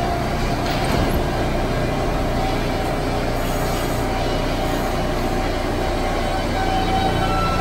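R160 subway train at the platform: a steady low rumble with faint humming tones, and a thin wheel squeal beginning near the end.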